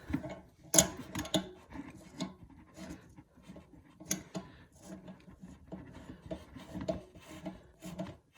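Bidet T-valve being threaded by hand onto the toilet tank's supply connection: irregular small clicks and scraping of the threads and fittings being handled.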